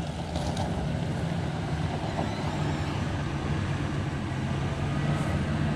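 1997 Ford Expedition's V8 running steadily as the SUV rolls slowly forward over gravel toward the listener.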